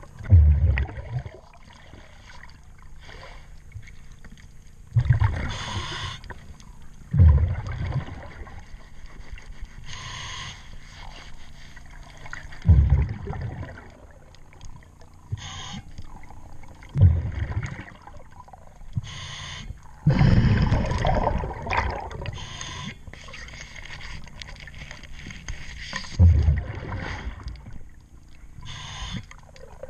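A diver breathing underwater through a regulator: a short hissing inhalation, then a loud low bubbling exhalation, repeating roughly every four to five seconds.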